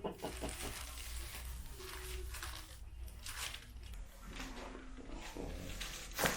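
Soft rustling and shifting of a patient on a treatment table, then one sharp crack about six seconds in: a chiropractic joint adjustment.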